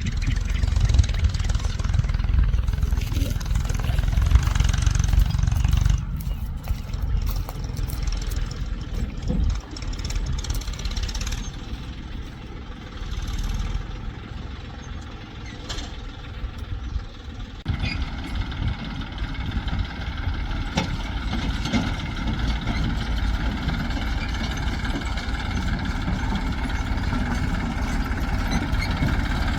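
Diesel engines of a backhoe loader and tractors at work: a heavy low rumble, loudest for the first six seconds. From about two-thirds of the way in, a steady idling engine note takes over.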